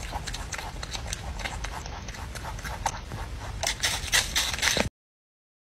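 A rabbit crunching and chewing a bite of crisp green apple: a dense run of crunches that grows louder near the end, then cuts off suddenly about five seconds in.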